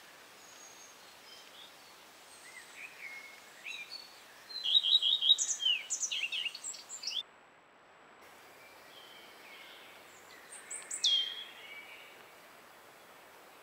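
Wild songbirds singing: a burst of quick, high chirping notes about halfway through over a steady background hiss. Later comes a single high call that falls sharply in pitch.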